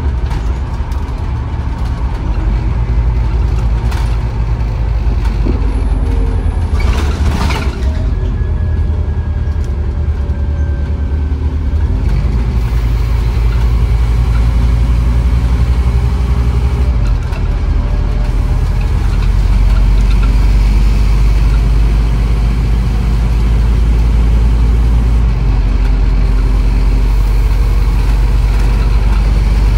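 Scania N230UB OmniCity bus's five-cylinder diesel engine running, with a short burst of air hiss about seven seconds in. The engine gets louder and heavier from about twelve seconds in, as it pulls under load.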